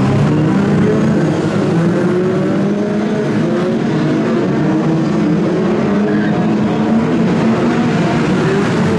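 Several BriSCA F2 stock car engines running together on the track, their pitch drifting up and down.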